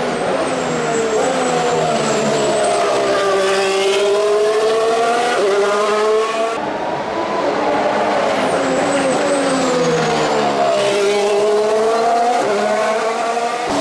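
A 2014 Formula One car's 1.6-litre turbocharged V6 engine. Twice, the pitch falls as the car slows for a corner, then climbs again with a sudden drop at a gear change. A thin high whistle sits over the engine during the slower parts.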